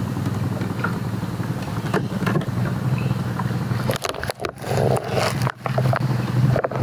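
A small boat engine running steadily at a low, even pitch, with scrapes and knocks from hands handling gear near the microphone between about two and five seconds in.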